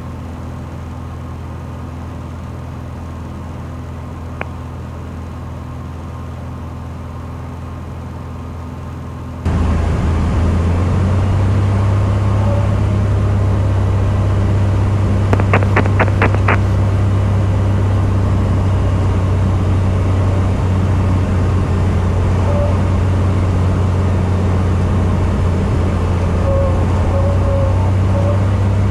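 Cessna 182's piston engine and propeller droning steadily in the cabin. About a third of the way in the drone abruptly becomes louder and fuller, and a quick run of about five clicks comes near the middle.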